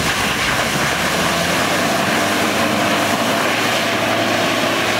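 Toyota Land Cruiser Prado four-wheel drive's engine running hard under load as it ploughs through a mud hole, with a steady rush of spraying mud and water from its churning tyres.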